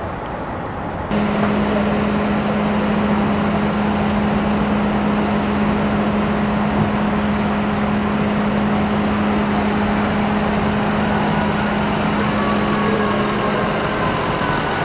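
Steady vehicle engine noise with a constant low hum, joined about a second in by a louder, brighter roar that runs on evenly.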